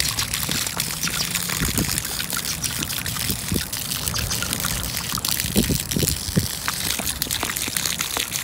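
Water pouring in a thin, steady stream from the mouth of a gourd canteen and splattering onto grass.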